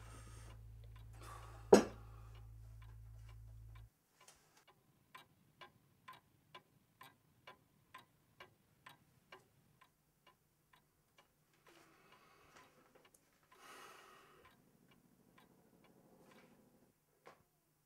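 Faint clock ticking about twice a second in a quiet room. A single sharp knock about two seconds in is the loudest sound, and a low hum cuts off about four seconds in.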